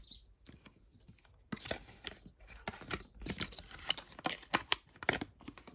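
Packaging being handled: irregular rustles and small clicks, starting about a second and a half in.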